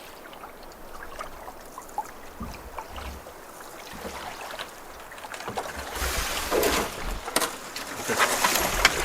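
Water trickling and splashing around a canoe, with small knocks and clicks; it grows louder and busier over the last three seconds.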